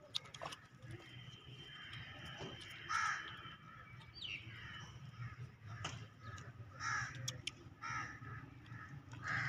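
Short, harsh animal calls repeated about five times, mostly in the second half, over a low steady hum.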